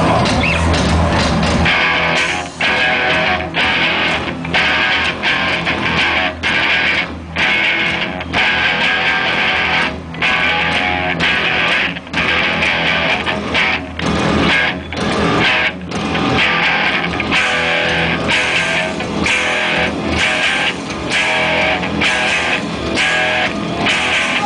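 Loud music over a festival sound system, led by a distorted electric guitar, broken by many short, sharp stops.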